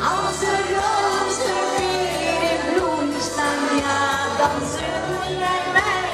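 A woman singing live into a handheld microphone, her voice amplified over pop-style musical accompaniment with a steady, repeating bass beat.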